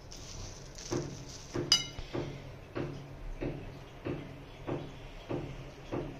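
Evenly repeated light knocks, about two a second, with one sharp metallic clink about two seconds in.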